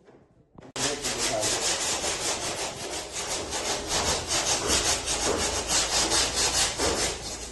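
Rapid back-and-forth abrasive scraping, typical of hand-sanding or filing a car body panel during dent-and-paint repair. It starts abruptly under a second in and keeps an even stroke rhythm.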